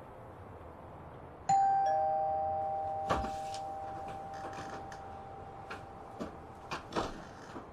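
Two-tone ding-dong doorbell chime, a higher note then a lower one, ringing on and fading over several seconds. A knock or thud about a second later, then several lighter clicks and knocks near the end.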